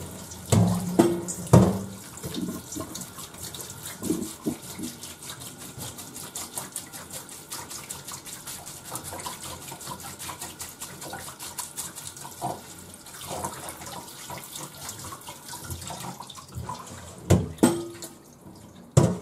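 Kitchen tap running a steady stream of water onto boiled noodles in a stainless mesh strainer, rinsing them to chill them. A few sharp knocks about a second in and again near the end as the strainer bumps the steel bowl and sink.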